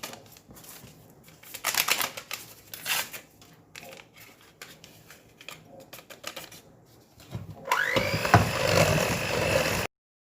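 Light clicking and rustling of kitchen handling. About eight seconds in, an electric mixer starts with a rising whine, runs steadily for about two seconds, then cuts off abruptly.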